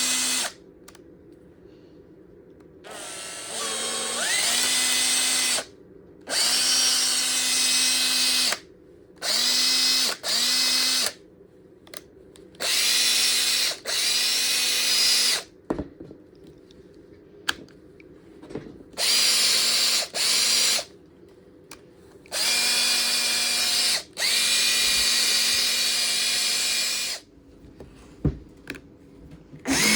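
Makita DF458D 18V cordless driver drill, its brushed motor running free in about ten short trigger pulls of one to three seconds each. Near the start one pull speeds up gradually with a rising whine; the others come up quickly to a steady pitch. A few sharp clicks sound between runs.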